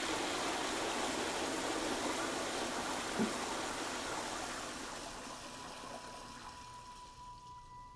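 Water rushing through restroom plumbing after a toilet or urinal flush, fading away over the second half, with a single soft knock about three seconds in. A steady high tone fades in near the end.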